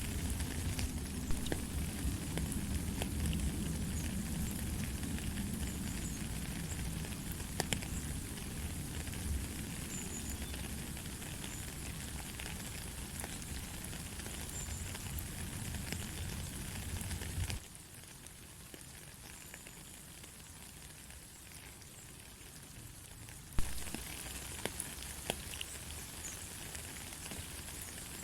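Steady light rain: an even hiss with scattered drops ticking. A low rumble under it drops out for several seconds about two-thirds through and comes back with a sharp tick.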